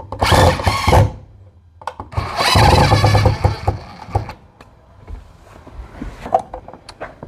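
Cordless power driver spinning the mounting screws of a duplex outlet into a wall electrical box: a short run of under a second, then a longer run of about two seconds, followed by a few light clicks.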